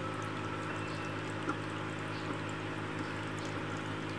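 Steady bubbling and trickling of water in a small guppy aquarium, over a low steady hum.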